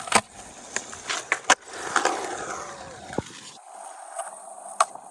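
Skateboard rolling and clacking on concrete: several sharp board clacks in the first second and a half, wheels rolling for about two seconds, then another clack near the end. This is a trick attempt that doesn't land.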